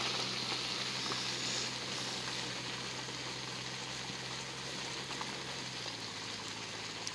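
Steady hissing noise over a low motor hum; the lowest part of the hum stops about six seconds in.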